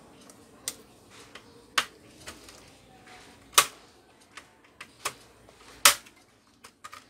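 Plastic snap clips of a Toshiba Satellite C660 laptop's top case popping loose as the case is pried apart from the base: a series of sharp clicks at irregular intervals, the loudest about a third of the way in, in the middle and near six seconds in.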